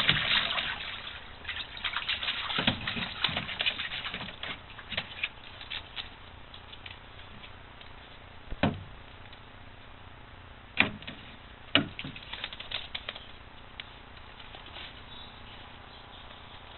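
Newfoundland puppies splashing and paddling in a shallow plastic kiddie pool: a busy patter of water over the first few seconds, thinning out, then three short sharp sounds near the middle.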